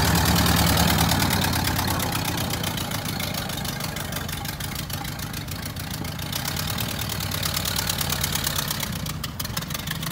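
1928 Ford Model A's flathead four-cylinder engine running at low speed as the car drives past and away. The sound is loudest at first and fades over the next few seconds.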